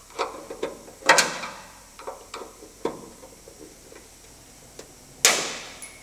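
Flathead screwdriver prying at the spring clip on a bonnet strut's end fitting: a run of small metallic clicks and scrapes, with a loud metallic snap about a second in and another near the end, where the clip springs off.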